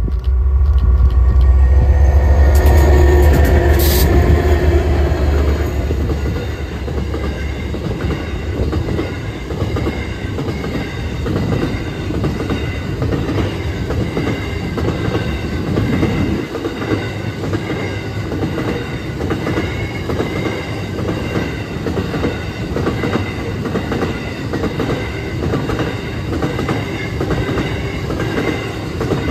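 Watco grain train passing close: a heavy low rumble for the first five seconds or so as the locomotive goes by, then empty grain hopper wagons rolling past with a steady, rhythmic clatter of wheels on the rails.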